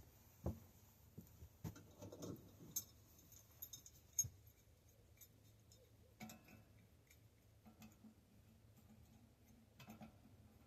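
Sparse light clicks and taps of tools and metal bicycle parts being handled during bottom-bracket work, with a sharper click about four seconds in; otherwise near silence.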